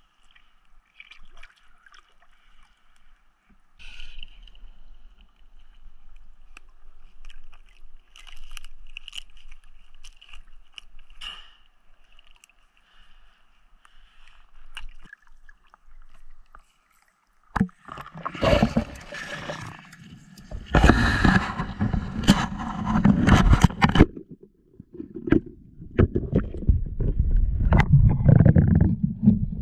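Water sounds of a spearfisher moving through a reedy shallow pond: faint lapping with small scrapes against the reeds, then from a little past halfway, loud splashing and a muffled, low rushing noise heard under water as he goes down.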